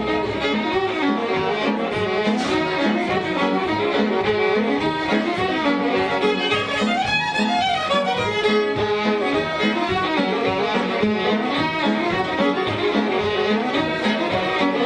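Instrumental music led by fiddle, with other strings, starting abruptly and going on as a quick run of dense notes.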